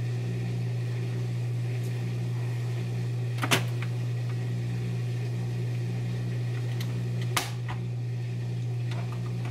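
Capsule cocktail machine with a steady low hum, then two sharp clicks: one about three and a half seconds in, and another about seven and a half seconds in as its lid is lifted open.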